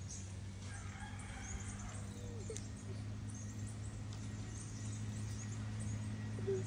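Chickens calling faintly over a steady low hum.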